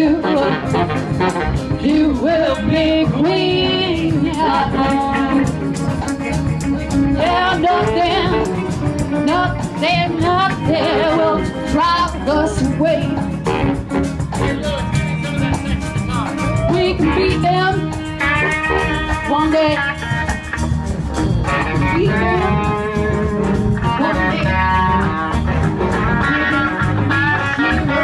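A live horn band playing: electric guitars, saxophones, keyboard, bass and drums, with singing.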